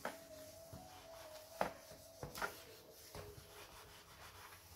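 Faint rubbing of plastic covering film being pressed and ironed down with a hobby covering iron, tacking the film's edge, with a few light clicks.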